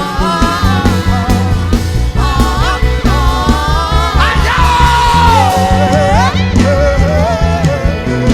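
Live gospel worship music: a singer's voice sliding through melodic runs over a band with a steady bass and drum beat, holding one long note about five seconds in.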